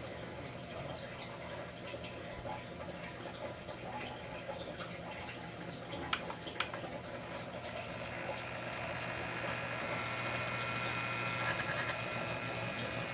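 Lionel NASCAR toy train running around its track: a steady whir and rumble of the small electric locomotive and its wheels on the rails, with a few light clicks. A higher whine joins about eight seconds in.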